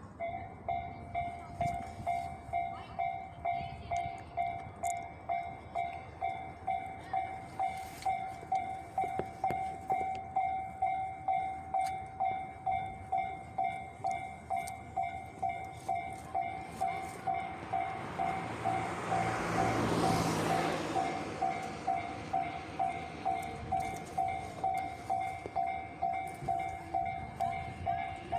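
Japanese level-crossing alarm ringing its electronic two-tone bell at about two strikes a second, warning that a train is coming. About two-thirds of the way through, a train passes over the crossing, its wheel and running noise swelling up and fading while the bell keeps ringing.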